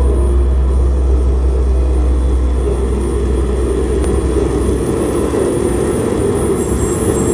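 Loud live modular synthesizer noise music: a dense droning texture over a heavy low bass drone that breaks up and wavers about five seconds in, with a thin high steady tone above.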